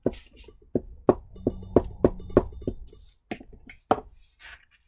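Irregular taps and light knocks on a tabletop, about ten in four seconds, as a glue stick is handled and set down and hands press a paper cut-out flat.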